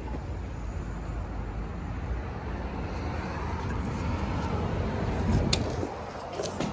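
Street traffic noise, swelling a little as a car passes, then sharp clicks near the end from a glass entrance door's handle and latch as the door is pulled open.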